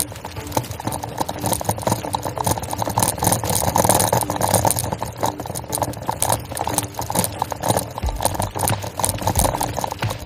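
Bicycle tyres rolling over a gravel track: a steady, dense crunching and rattling of grit and small stones under the wheels.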